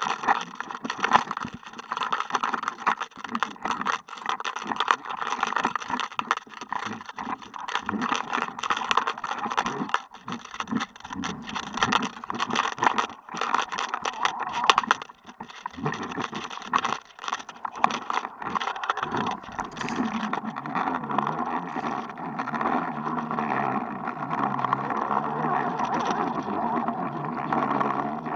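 Underwater action camera on a fishing line knocking and rattling in its housing as the jig is jerked, a dense stream of irregular clicks. About twenty seconds in it settles into a steadier sound with a low hum.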